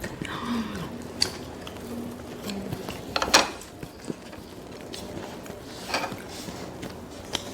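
Eating sounds: scattered small clicks and a few louder crunchy crackles, the loudest about three seconds in and another about six seconds in.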